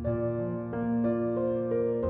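Soft background piano music, a slow melody of single held notes over a sustained bass.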